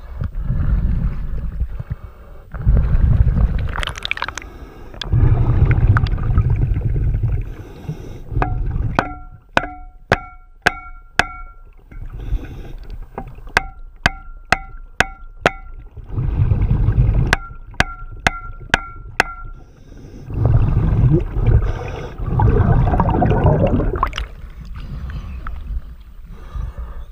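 Metal-on-metal hammer taps on a sailboat's propeller underwater, to knock it loose from the shaft so it pops off. Three runs of about five or six sharp ringing taps, two to three a second, between long bursts of bubbling.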